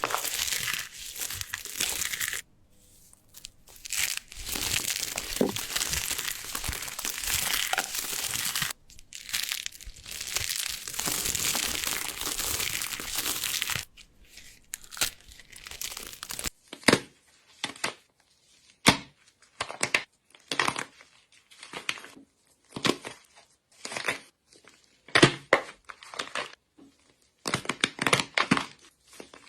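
Dry soap being crushed and scraped, a dense crumbling crackle that runs with short breaks through the first half. About halfway through it gives way to separate crisp crunches, roughly one a second, like a blade cutting through hard soap.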